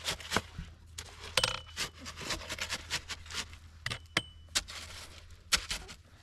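Irregular sharp metallic clinks and knocks, a couple of them ringing briefly.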